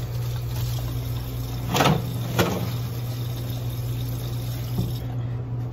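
Steady low machine hum, with two sharp knocks about two seconds in and a fainter knock near the end.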